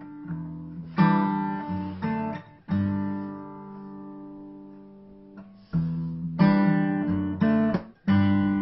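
Acoustic guitar strumming chords, with one chord left to ring and fade for about three seconds in the middle before quicker strumming picks up again.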